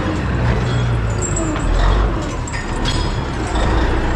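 Kenworth truck's diesel engine running steadily at low revs as the truck backs slowly into the shop, with a few sharp clicks about two and a half to three seconds in.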